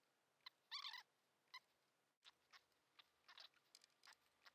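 Faint, scattered metallic clicks of a quarter-inch-drive torque wrench and socket being worked on cam ladder bolts, with a small cluster of clicks about a second in.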